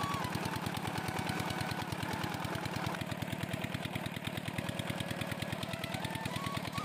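Irrigation pump engine chugging with a fast, even beat while water gushes from the pump's discharge pipe into the channel.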